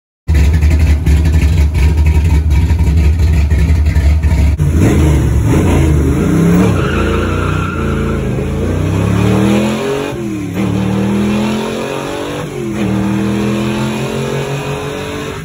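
A car engine running steadily, then accelerating hard from about four and a half seconds in, its pitch climbing and dropping back sharply twice, about ten and twelve seconds in, as it shifts up through the gears.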